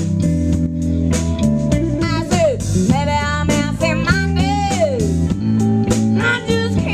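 Live band playing a blues number: electric guitar over bass and a drum kit, with cymbal strokes and notes that glide and waver in pitch in the middle.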